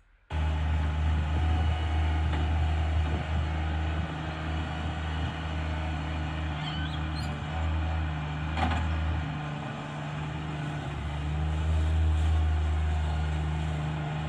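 Compact loader's engine running steadily as the machine drives and works its front bucket in soil. The level dips briefly and picks up again, and one sharp click stands out a little past the middle.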